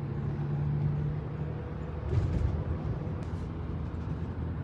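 Car driving, heard from inside the cabin: a steady low road rumble, with an engine hum that fades about a second and a half in.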